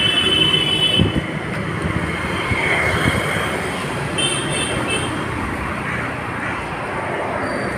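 Steady road traffic noise heard from a moving vehicle on a busy city street, with a few short high-pitched beeps about four to five seconds in.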